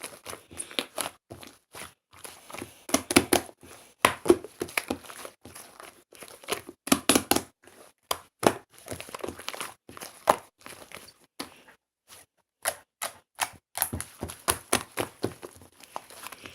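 Slime being squished, pressed and stretched by hand, giving dense runs of quick crackling pops and clicks that come in bursts with short pauses between them.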